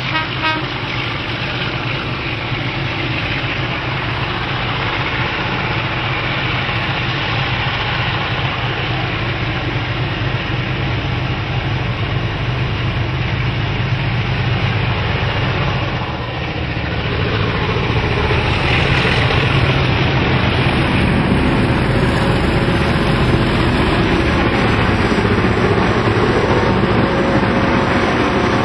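Diesel locomotives hauling a container freight train, their engines working steadily as the train approaches. The engine sound grows louder about two-thirds of the way in, as the locomotives draw level and pass close by.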